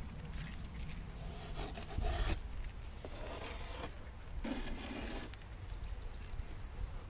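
Hive tool scraping and levering at the wooden frames of an open beehive: three rubbing scrapes between about one and a half and five seconds in. A steady low wind rumble on the microphone runs underneath.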